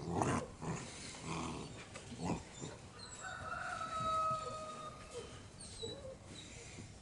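Puppies playing rough, with scuffling and short whimpering yelps. A longer drawn-out call holds steady for about two seconds from about three seconds in.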